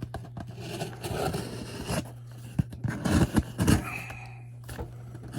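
A shipping package being opened by hand: irregular scraping and tearing of cardboard and packing tape, with a few knocks in the middle, over a steady low hum.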